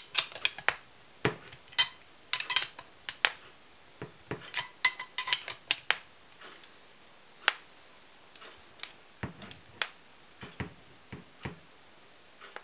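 Irregular sharp metallic clicks and clinks of a homemade bolt-and-washer bearing press being turned and handled, as a 6805 bearing is pressed into a plastic bottom-bracket shell. The clicks come thickly for the first six seconds or so, then more sparsely.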